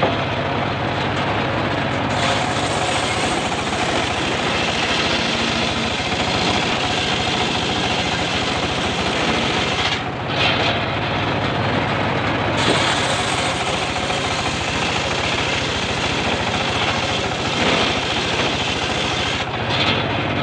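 Homemade engine-driven circular saw bench running steadily while ripping a mahogany log, the engine's hum under the harsh noise of the blade cutting through the wood. The cutting noise drops briefly about halfway through and again near the end, between cuts.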